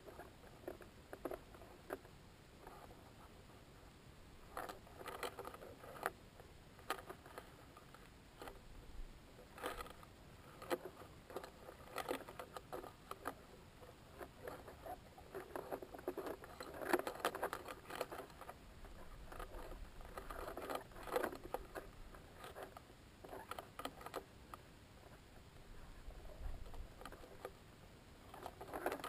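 Irregular crackling, scratching and clicking from inside a near-space balloon's payload box, the enclosure and camera creaking and rubbing as the payload swings. The clicks come in scattered clusters, busiest in the middle of the stretch.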